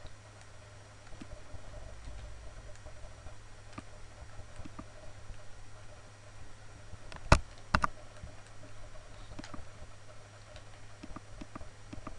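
Computer mouse clicking and being handled, with scattered faint clicks and two much louder sharp clicks close together a little past halfway, over a low steady hum.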